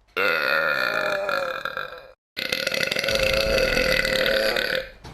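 Two long, loud burps from a man, one after the other: the first lasts about two seconds, and after a brief silence the second runs about two and a half seconds.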